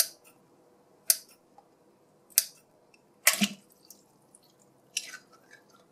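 Scissors snipping open small water-filled plastic squeeze toys over a basin of water, with the liquid splashing: five short sharp sounds about a second apart, the longest with a low thud about three seconds in.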